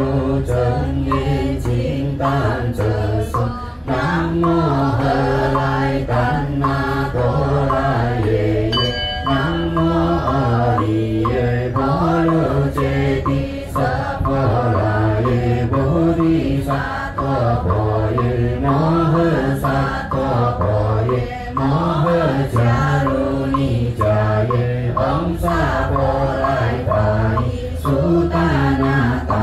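Group Buddhist sutra chanting in unison, kept in time by steady knocks on a wooden fish (muyu) block. A small bell rings briefly about nine seconds in.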